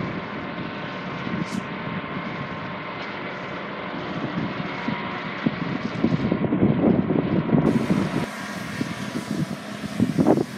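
Aerial fire truck's engine and water pump running at a steady speed to feed the platform nozzle's water stream: a steady mechanical drone with wind rumbling on the microphone, gusting louder in the second half. The sound changes abruptly near the end.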